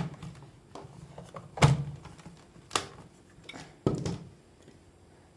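Plastic knocks and clicks from a hand blender's motor unit being seated and handled on the chopper bowl's lid: four separate knocks, the loudest about a second and a half in, with the motor not yet running.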